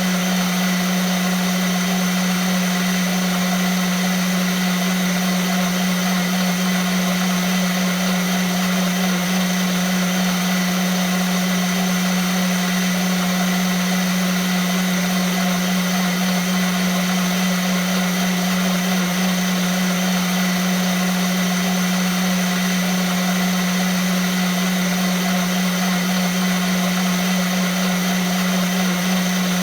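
Vitamix blender motor running at one constant speed: an even, high whirr with a strong steady hum beneath it, no change in speed.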